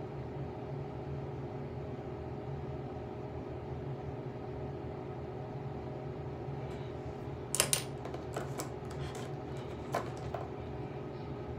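Steady low hum of room background noise. About two-thirds of the way in come a handful of light clicks and taps, the loudest two close together at the start, then another sharp click about two seconds later.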